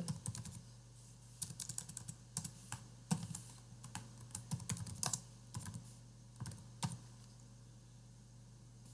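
Computer keyboard typing: irregular keystroke clicks in short quick runs, stopping about two seconds before the end, over a steady low hum.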